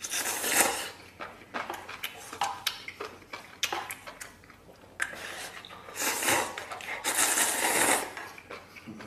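A person slurping instant noodles in long sucking bursts, at the start and again about five to eight seconds in. Between the slurps come chewing and chopsticks clicking against a stainless-steel bowl.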